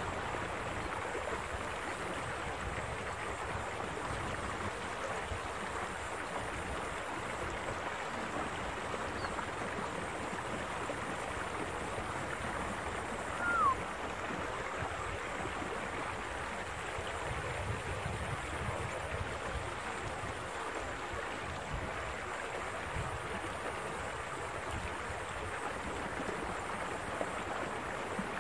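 Steady rush of water flowing along a stone-lined irrigation channel. About halfway through, one short falling whistle-like note stands out briefly.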